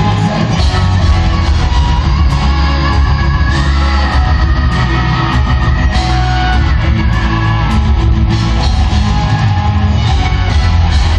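Live rock band playing loud in an arena, led by electric guitars over a heavy bass, recorded from the audience.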